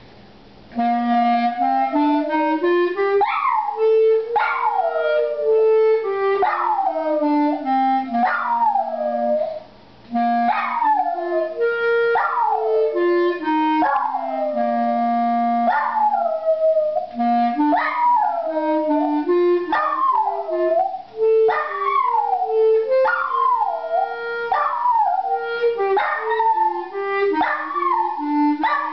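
A small dog howling along to an instrument that plays a slow tune in long held notes. Each howl starts high and slides down, one about every second, with a short pause near ten seconds.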